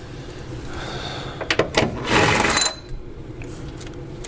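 Socket wrench working a 13 mm nut off an exhaust mount: two sharp metal clicks about a second and a half in, then a short clattering burst of metal on metal.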